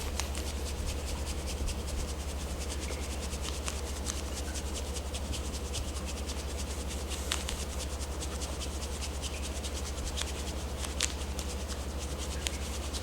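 Hands rubbing firmly over the skin while massaging lymphatic reflex points: a steady brushing friction with many fine crackly ticks, over a constant low hum.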